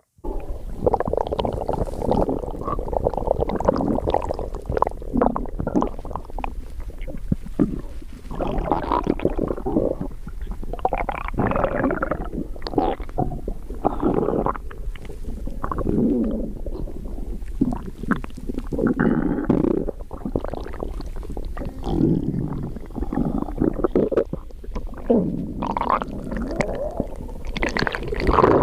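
Stomach growling and gurgling: a continuous run of rumbles, squelches and small popping clicks that swell and fade every second or two, over a steady low hum.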